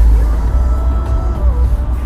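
Background music, the instrumental intro of a song with a melody line that steps down about one and a half seconds in, over a steady low rumble.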